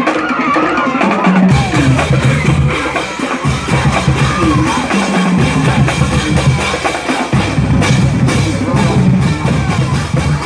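Music with a steady drum-kit beat and a heavy bass line that drops out briefly a few times.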